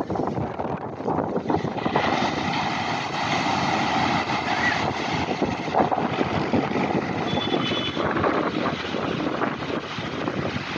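Surf breaking on a sandy beach, with wind gusting on the microphone. From about two seconds in there is also a steady motor drone underneath.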